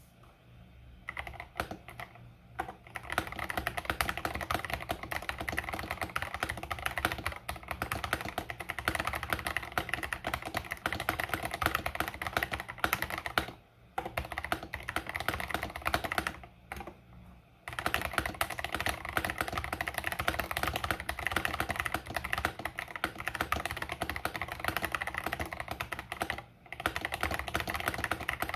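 Fast typing on an 8BitDo Retro Mechanical Keyboard with KTT Strawberry switches: a dense, rapid run of key clicks and clacks that pauses briefly twice, about halfway through.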